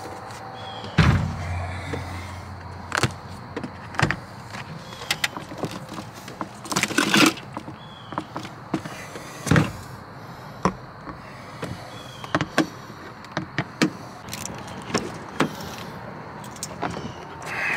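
A string of irregular knocks, clicks and thumps as gear is handled and stowed in and around a pickup truck, with a few heavier thumps, the first about a second in.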